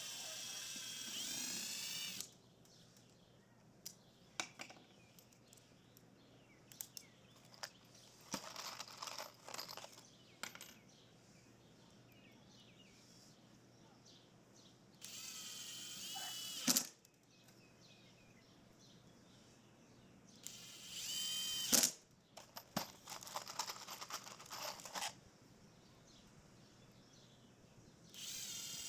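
Power drill run in several short bursts of a second or two, its motor whining at high pitch, with sharp clicks at the end of some bursts and small knocks in between.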